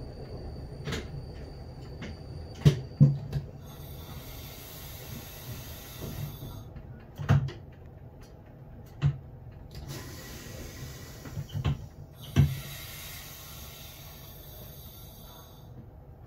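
Hissing in three bursts of a few seconds each, with sharp clunks scattered between them, in the cab of an RBDe 560 'Domino' train standing at a station stop, over a low steady hum.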